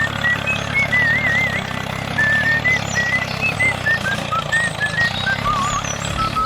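Steady low hum of a vehicle engine running, with a high tune of short, warbling notes stepping up and down over it.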